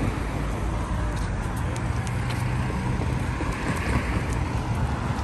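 Steady road traffic noise from cars driving past on the street.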